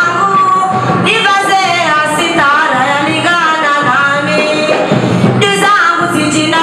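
Women's singing with musical accompaniment, loud and continuous.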